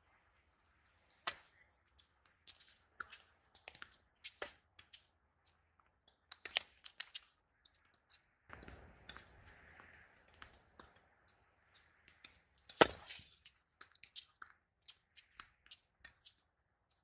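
Tennis ball hit back and forth with racquets on a hard court: a string of sharp pops of strings on ball and ball bounces, the loudest hit about three-quarters of the way through.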